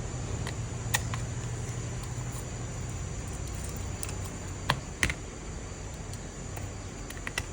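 A few light, sharp clicks of a small screwdriver and tiny screws on a phone's frame as a Vivo Y91 is screwed back together, one about a second in and two close together near the middle, over a steady low hum.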